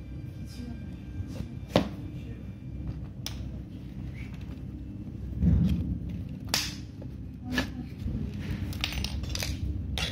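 White laminated particleboard desk panels and their fittings being handled and fitted together: scattered sharp knocks and clicks, with one heavier low thump about five and a half seconds in.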